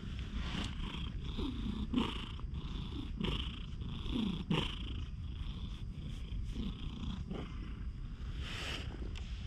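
Tabby cat purring steadily while being stroked, with a few short low sounds that fall in pitch and soft rustling of fur against the hand.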